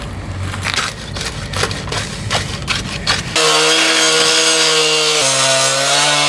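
Two-stroke Hilti DSH petrol cut-off saw running at full speed, its disc cutting into the driveway surface. A loud, steady high engine note starts abruptly about three seconds in and dips slightly in pitch about two seconds later. Before it there is a lower rumble with scattered scraping clicks.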